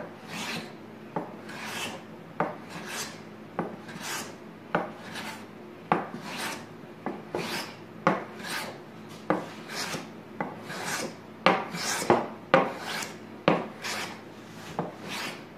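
Small maple-and-ipe smoothing plane with a PM-V11 steel blade planing the edge of a very hard Ipe board: a rapid series of short cutting strokes, about one and a half to two a second, each a brief hiss as the blade takes a shaving off the weathered surface.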